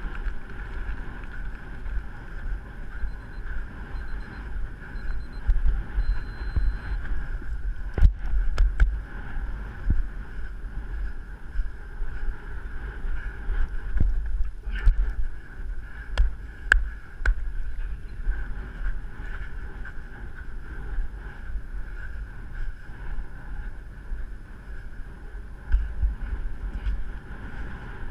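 Wind buffeting the camera's microphone: a steady low rumble, with a few sharp knocks and clicks about eight seconds in and again mid-way.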